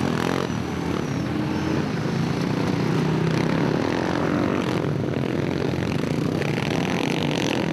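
Racing quad bike (ATV) engines running at high revs, several machines at once, their pitch rising and falling as they accelerate.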